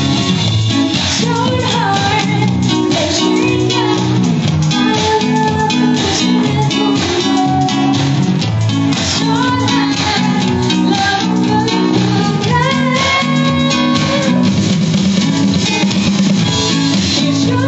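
Band music: a guitar plays a melodic lead line over bass guitar and a drum kit, with no sung words.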